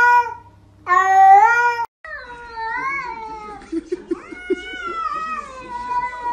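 A grey tabby cat meowing loudly in long, drawn-out calls: one ends just at the start and another, about a second long, follows. After that come quieter wavering calls and a few light taps.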